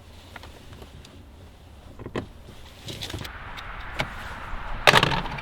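Scattered clicks and knocks of hands working on a car door and its trim, with a louder clattering knock near the end.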